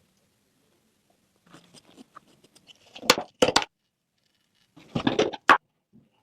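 A run of small clicks and rattles, with sharp knocks of hard objects about three seconds in and again about five seconds in.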